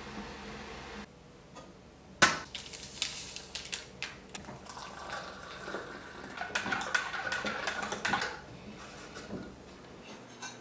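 A sharp clink about two seconds in, then lighter clicks and rustles. After that, hot water runs from an instant water boiler's tap into a stainless steel mug for about three seconds and then stops.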